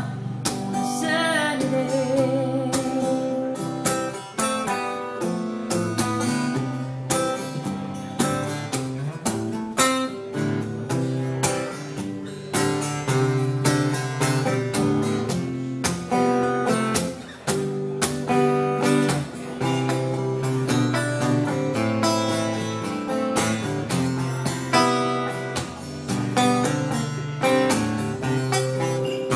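Steel-string acoustic guitar playing an instrumental break, strummed chords mixed with picked notes. A held sung note with vibrato fades in the first couple of seconds.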